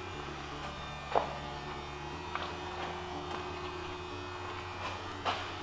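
A low steady hum with a few faint clicks and taps.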